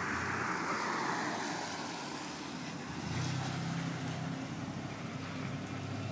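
A vehicle passes on a wet road, its tyre hiss falling away over the first couple of seconds. From about three seconds in, a motor vehicle engine runs with a steady low hum.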